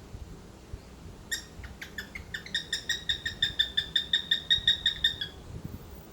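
Cockatiel giving a fast run of short, same-pitched chirps that start about a second in, speed up to several a second and grow louder before stopping suddenly.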